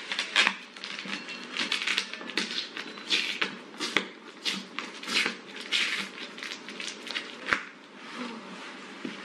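Packing tape being peeled off a cardboard shipping box: a run of irregular crackling rips with a few sharp clicks, and the scrape of the cardboard flap being lifted.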